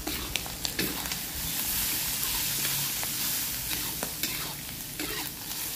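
Goat meat and spices sizzling in a wok as a metal spatula stirs and scrapes through them, with irregular sharp clicks of the spatula striking the pan.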